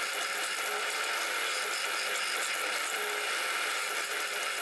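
Drill press running steadily as its twist bit cuts a hole in an aluminium housing plate.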